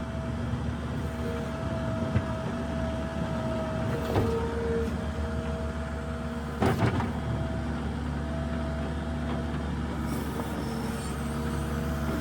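New Holland LS170 skid steer's diesel engine running steadily while clearing snow, with a higher whine that comes and goes. Sharp clunks come about two and four seconds in, and the loudest about seven seconds in.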